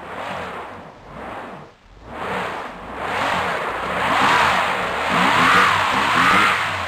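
A vehicle's engine revving hard as it tries to pull out of mud, its pitch swinging up and down several times; it grows louder about two seconds in.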